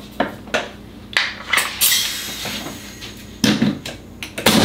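Handling noise on a plywood workbench: a string of separate clicks, knocks and clacks as a battery is fitted to the cordless compressor and a nailer is picked up and set down.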